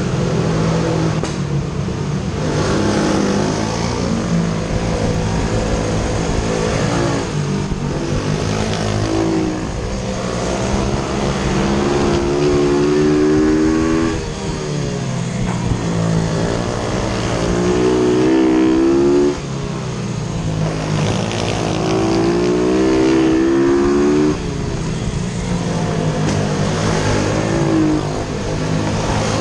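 YCF F125 pit bike's 125 cc four-stroke single-cylinder engine at racing speed, heard from on board. The engine rises in pitch along each straight, then drops away abruptly as the throttle is shut for the corners. This happens several times over.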